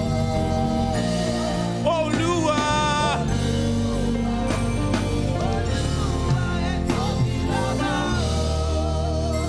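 Slow church worship music: held chords over a steady bass, with a voice singing a wordless, wavering melody.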